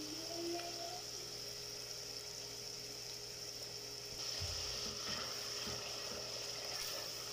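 Onions and ginger-garlic paste sizzling steadily in oil in an aluminium pot. About four seconds in, a spatula starts stirring, knocking and scraping against the pot.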